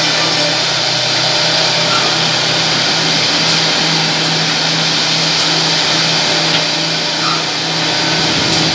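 Woodmaster multi-head CNC mortising machine running, its router spindles cutting mortises into clamped wooden chair parts: a steady, loud cutting noise over a constant motor hum.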